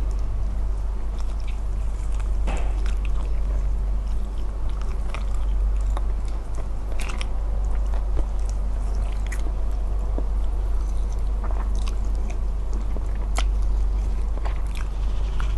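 Close-miked chewing and biting of smoked chicken, with many short, crisp clicks and crunches scattered through, over a steady low hum.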